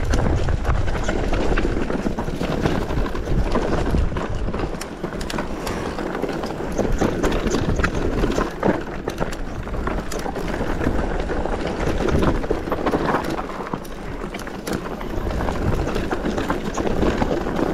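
Mountain bike rolling down a rocky trail: tyres on loose stones and the bike rattling over bumps, a steady rumble dotted with many sharp clicks and knocks.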